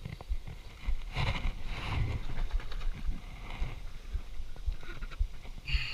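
Handling noise in an inflatable kayak: a string of light knocks and thumps with brief rustles as a freshly landed largemouth bass is lifted and set on a plastic fish-measuring board, with louder rustling bursts about a second in, about two seconds in, and near the end.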